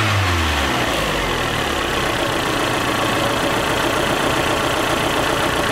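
Turbocharged Ford Festiva four-cylinder engine dropping back from a brief rev in the first second, then idling steadily. It is blowing heavy fumes out of the crankcase breather filter, which the owner takes for a wounded piston.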